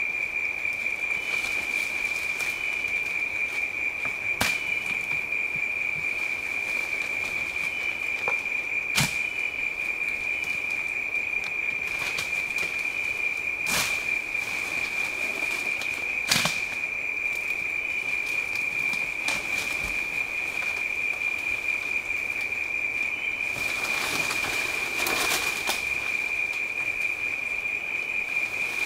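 A steady, high-pitched drone of rainforest insects throughout. A few sharp snaps stand out over it, and a short stretch of rustling comes a few seconds before the end.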